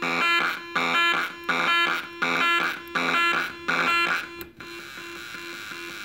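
Homemade breadboard drum circuit playing a repeating electronic beat: buzzy, pitched hits about every 0.7 seconds over a steady low tone. The hits stop about four and a half seconds in, leaving only the tone.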